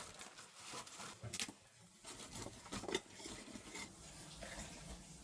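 Faint, scattered clicks and taps, with a sharper knock about a second and a half in and another about three seconds in.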